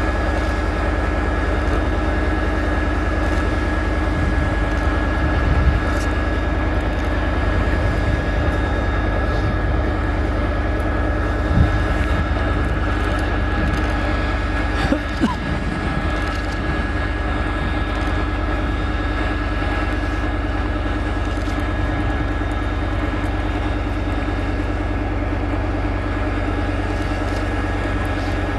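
Armoured military vehicle's diesel engine running steadily, with a constant high whine over the deep engine note and a few short knocks.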